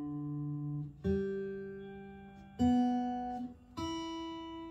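Fender Acoustasonic Player Telecaster played through a small Crate amp: three chords strummed about a second and a half apart, each left to ring and fade.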